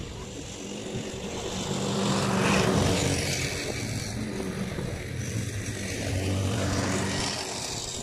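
Single-cylinder Briggs & Stratton four-stroke engine of a walk-behind lawn mower running steadily, its hum swelling louder about three seconds in and again about six seconds in as it moves nearer and away.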